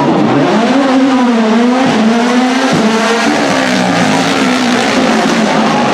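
Rally car engine driven hard, its pitch rising and falling as the car accelerates and changes gear, with brief dips about two seconds in and again a little later.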